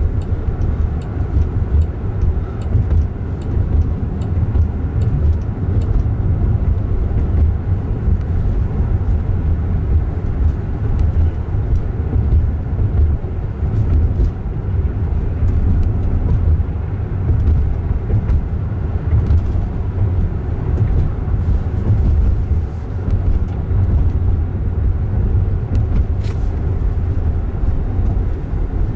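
Steady low road rumble inside the cabin of a moving electric car, a Jaguar I-Pace, with no engine note. A few faint clicks are scattered through it.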